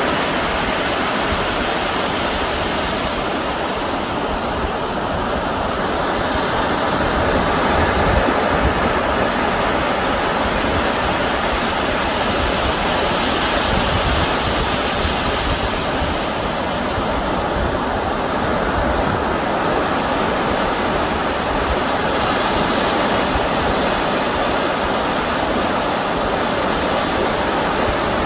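Sea surf on the shore, a steady even rush of waves with slight slow swells in loudness.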